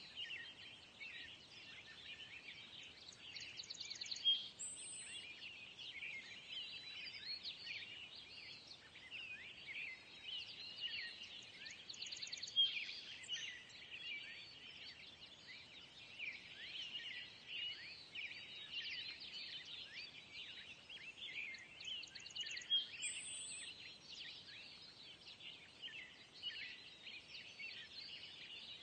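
A busy chorus of songbirds chirping and trilling without a break, an outdoor birdsong ambience; the same phrases come round again after about 18 seconds, as in a looped track.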